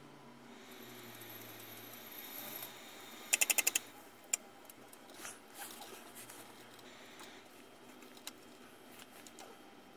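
Quiet handling of small metal parts: a quick run of about six sharp clicks, a single click just after, then a few faint taps and knocks.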